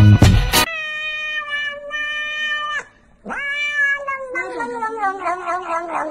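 Domestic cat giving long, drawn-out meows while eating from a tube: one call held for about two seconds, a second that rises sharply and holds, then a lower, wavering yowl that pulses in pitch. A snatch of music cuts off under a second in.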